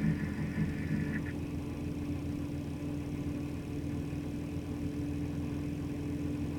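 Dell Optiplex 780's power-supply fan running at idle, a steady drone with a constant hum; this annoying noise comes from the PSU. A wavering tone rides on it for the first second or so.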